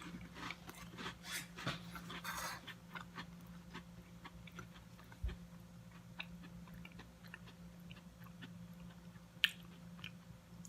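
Close-up chewing of a Ritz cracker spread with cream cheese and pepper jelly: crisp crunches come thick and fast for the first few seconds, then thin out to occasional soft chews. A faint steady hum runs underneath.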